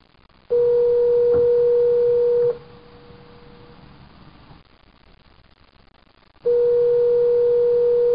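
Telephone ringback tone: the called line ringing twice, each ring a steady tone of about two seconds with about four seconds of quiet line noise between, as the call waits to be answered.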